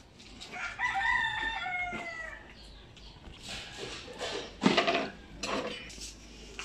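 A rooster crows once, about a second in, a call of about a second and a half with a slightly falling pitch. A few seconds later come several clattering knocks, the loudest about four and a half seconds in.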